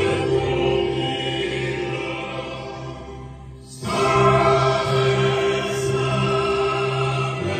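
Choral music with orchestra, most likely a national anthem played at the medal ceremony, with sustained choir and orchestral chords. It fades to a short lull a little over three seconds in, then the next phrase comes back in loudly.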